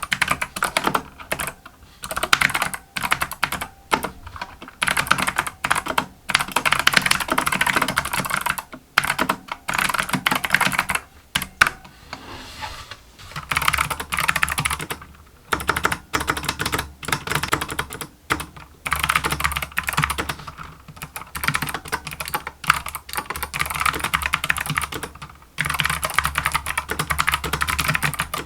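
Mechanical keyboard with Kailh optical clicky switches being typed on in rapid bursts of keystrokes with short pauses between them, each key giving a click.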